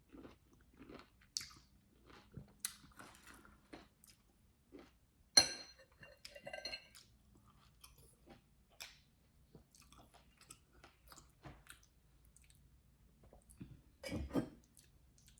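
Close-up chewing and sucking on lime wedges coated with Tajin and chamoy: scattered wet mouth clicks, smacks and crunches. There is one sharp louder sound about five seconds in and a louder burst of chewing near the end.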